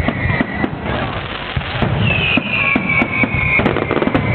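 Fireworks finale: many shells bursting in quick, overlapping succession with dense crackling. A high whistle sliding slightly down in pitch comes in about halfway through, and another comes near the end.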